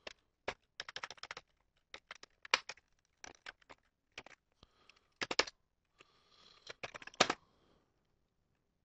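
Typing on a computer keyboard: quick, irregular keystroke clicks in short runs, stopping about seven seconds in.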